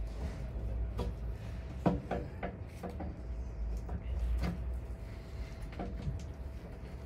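Scattered knocks and clicks of a timber window sash being handled while its old sash cord is twisted off with pliers, pulling the tacks out of the sash. One sharper knock comes about two seconds in.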